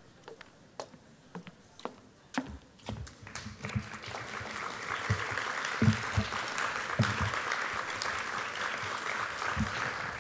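Theatre audience applauding: a few scattered claps at first, swelling about three or four seconds in into steady, full applause.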